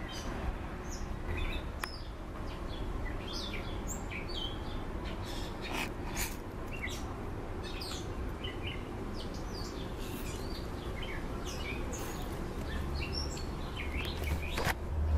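Wild birds chirping and calling: many short, quick calls overlapping. A low rumble comes in near the end.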